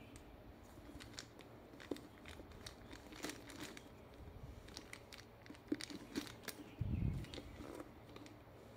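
A leather handbag being handled: small clicks and taps from its metal strap fittings and lock hardware, with light leather rustling, and a dull thump about seven seconds in.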